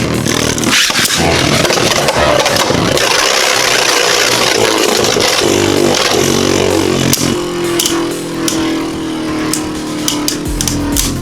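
Revive Phoenix and Vise Leopard Beyblade Burst tops spinning and scraping in a plastic stadium: a steady whirring, with a whine that slowly falls in pitch as the tops lose speed. Sharp clicking hits come in the second half.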